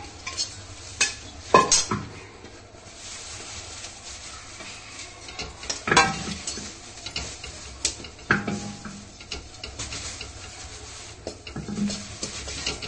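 Spoon stirring and scraping through muskmelon seeds roasting in ghee in a steel kadhai, knocking against the pan now and then, over a light sizzle and crackle from the seeds.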